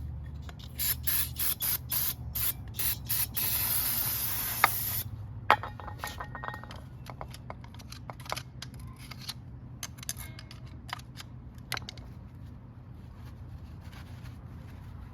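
About seven short bursts of spray hiss, then one longer spray lasting about a second and a half, consistent with cleaning dirt and wasp-nest debris off motorcycle parts. After that come scattered light clicks and knocks of metal parts being handled, over a steady low hum.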